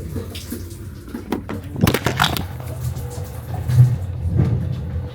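Water from a train's sleeper-car shower running and splashing in a small stall, with a few sharp knocks about two seconds in.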